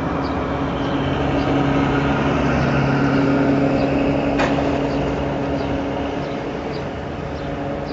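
Steady engine hum of street traffic, swelling in the middle, with one short sharp crack about four and a half seconds in as a motorcycle strikes the front of a minibus.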